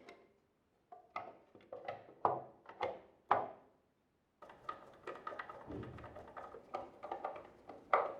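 Nespresso coffee machine parts knocking and clicking as they are handled and fitted together during reassembly, in quick irregular taps with two short breaks.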